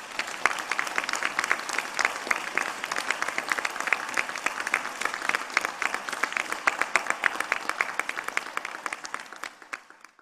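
Audience applauding: steady, dense clapping that thins out near the end and cuts off suddenly.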